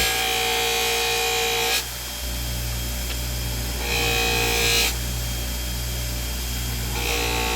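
Bench buffer motor running steadily while an acrylic edge is pressed against its red-rouge-loaded buffing wheel in three short passes, each a harsh rubbing hiss over the motor hum.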